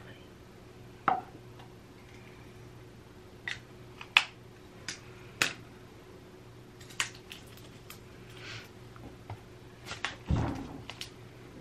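Handling noise on a bathroom counter: a scattered series of sharp clicks and taps as small objects are picked up and set down, the loudest about four seconds in, with a duller thump about ten seconds in.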